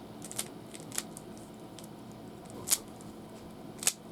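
Rubik's Cube layers being twisted by hand: a few short, sharp plastic clicks, the two loudest a little under three seconds in and near the end.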